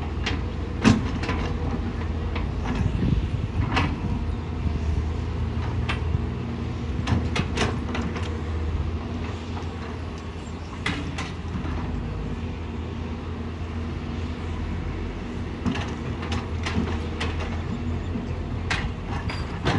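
Hydraulic excavator's diesel engine running steadily, with short sharp knocks from the machine working scattered throughout. The loudest knock comes about a second in.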